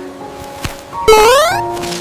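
Background music with a short rising, whistle-like sound effect about a second in. A sharp click comes just before it.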